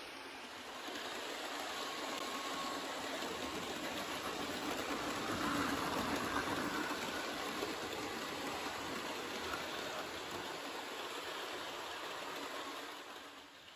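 Hornby OO gauge class 370 APT model train running round sectional track laid on a bare wooden floor: a steady rolling whir of its wheels and motor. It grows louder about a second in, is loudest around the middle, and fades near the end.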